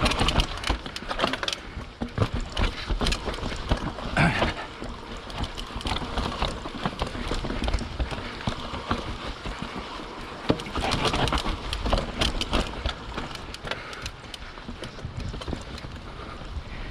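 A YT Capra 29 full-suspension mountain bike riding down a rocky trail: tyres rolling and knocking over rock, with the bike rattling in dense, irregular clatters over a steady low rumble.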